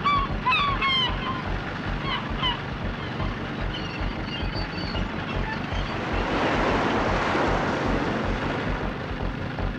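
Birds calling several times in the first few seconds, with shorter, higher calls about four seconds in, over steady surf and wind. A wave surges up about six seconds in and falls away.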